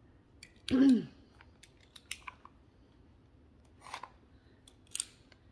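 A small cardboard product box being opened and its contents handled: scattered light clicks and short scrapes of cardboard and packaging. A brief voiced sound, falling in pitch, comes about a second in and is the loudest thing.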